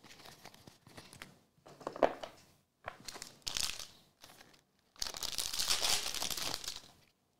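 A foil trading-card pack crinkles as it is handled, then gives a longer, louder crinkly tearing as it is ripped open about five seconds in.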